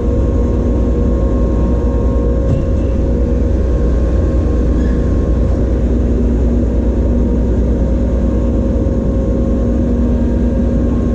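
Steady machinery drone: a continuous low rumble with several held hum tones over it that do not change.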